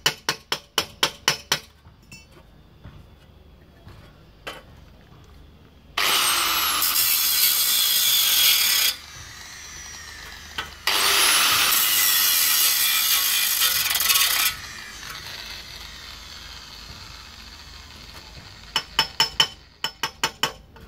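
Rapid, even hammer taps on a sheet-metal edge, then an angle grinder cutting into the metal in two loud bursts of about three seconds each, its whine fading as it spins down after the second. A second run of quick taps on the sheet-metal comes near the end.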